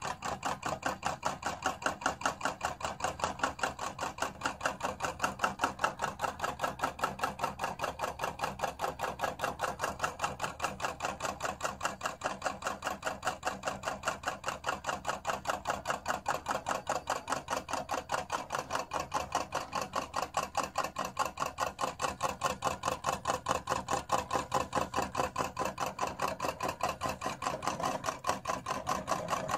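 Homemade Stirling engine with a rubber bellows piston and a large flywheel running at about 300 RPM, giving a rapid, even mechanical clicking that holds steady throughout.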